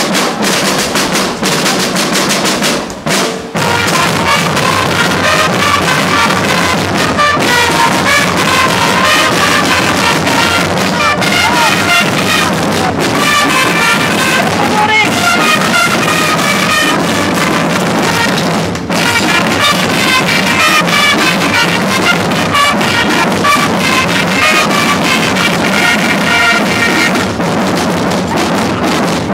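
Corps of marching drums from a historical-costume procession band, playing a steady rolling rhythm. A high melody line sounds over the drums.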